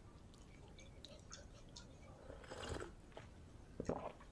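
A person chewing and eating khichdi by hand, with faint wet mouth clicks, a louder noisy stretch about halfway through, and a short sharp sound, the loudest, near the end.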